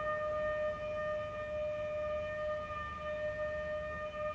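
Test-range warning siren sounding one steady, unwavering tone: the pre-fire warning that the solid rocket motor is armed and the firing is near.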